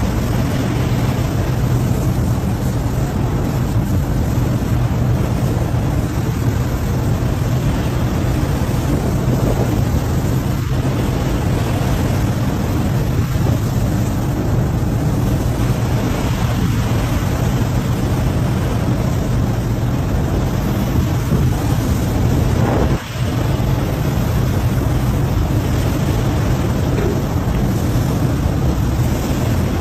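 Steady rushing of churning sea water and spray against a ship's hull, with wind on the microphone and a low machinery drone underneath, as the anchor is heaved up.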